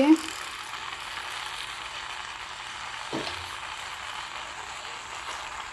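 Tomato-vegetable masala sauce sizzling steadily in a frying pan on a gas stove as boiled pasta is tipped into it.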